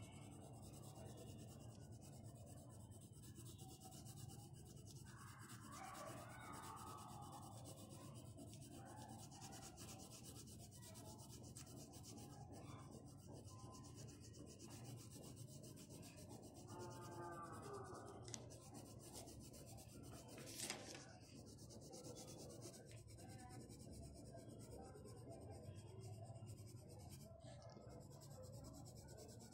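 Faint pencil lead scratching and rubbing on paper while shading, with one brief sharp click about two-thirds of the way through.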